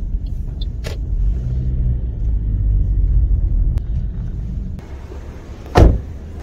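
Low, steady rumble of a car cabin as the car rolls slowly through a car park. About five seconds in it gives way to quieter open-air background, then a single loud thump near the end.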